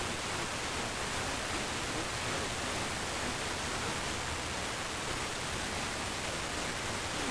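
Steady radio static: an even hiss from a receiver with no program audio coming through.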